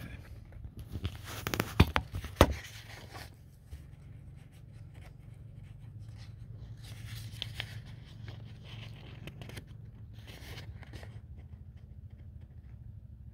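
Handling noise of the camera: rustling and scraping as it is moved or rubs against something, with a few sharp knocks about two seconds in. A steady low hum runs underneath.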